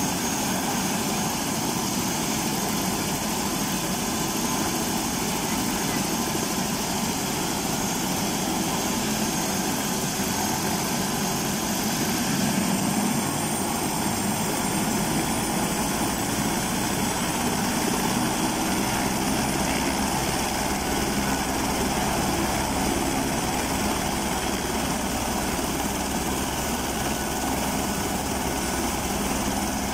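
Light turbine helicopter running on the ground with its main and tail rotors turning: a steady engine and rotor noise, with a faint high turbine whine coming and going midway.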